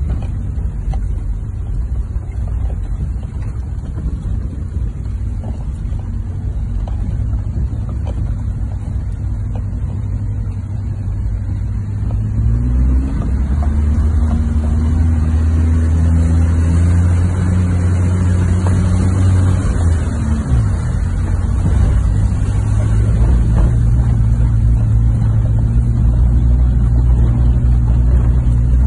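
A 4x4's engine heard from inside the cabin as it drives a rough off-road trail. About twelve seconds in, its note grows louder and settles into a steady drone, with a brief dip around twenty seconds.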